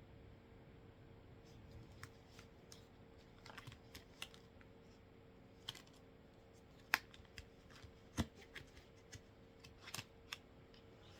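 Tarot cards being handled and shuffled: scattered, irregular light snaps and flicks that start about a second and a half in, over faint room tone with a steady low hum.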